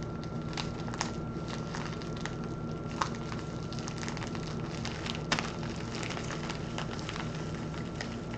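Scattered crackles and sharp clicks of packaging being handled and worked open, over a steady background hum with a thin high tone.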